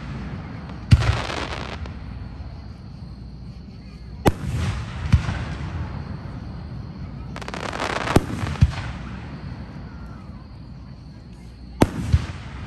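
Fireworks shells bursting overhead. Single sharp bangs come about a second in, around four and five seconds, twice around eight seconds and twice near the end. Several are followed by a crackling hiss that fades over about a second.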